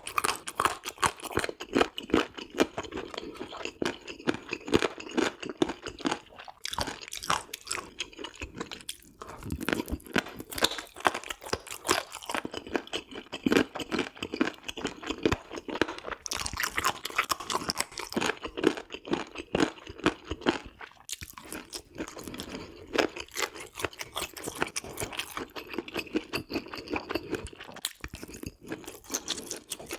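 Close-miked chewing of pork offal and gopchang (pork intestines and organ meats): a dense, irregular run of small wet clicks, with a few brief pauses between mouthfuls.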